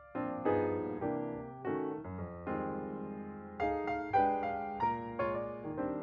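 Background piano music: gentle notes and chords struck every half second or so, each fading before the next.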